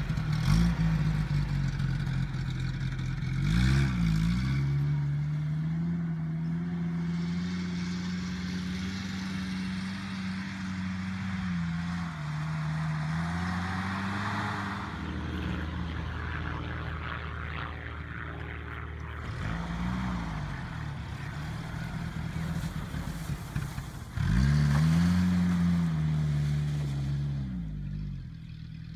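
A 1989 Mitsubishi Pajero short-wheelbase 4WD driving across a grassy paddock, its engine rising and falling in pitch several times as it accelerates and eases off, loudest near the end.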